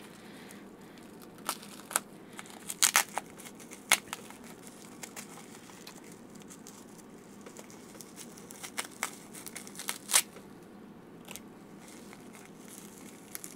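Small clear plastic parts bag being crinkled and torn open by hand with a thin hand tool: irregular sharp crackles of the plastic, the loudest about three, four and ten seconds in.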